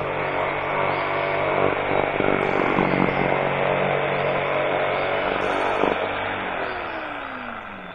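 Handheld electric circular saw cutting through a corrugated ondulin (bitumen) roofing sheet. About six seconds in the saw is released and its motor whine falls steadily in pitch as the blade spins down.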